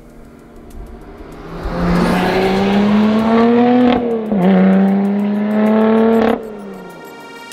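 Lotus Exige 430 Cup's supercharged V6 accelerating hard: the revs climb, drop sharply in an upshift about four seconds in, then climb again before the sound cuts off suddenly near the end.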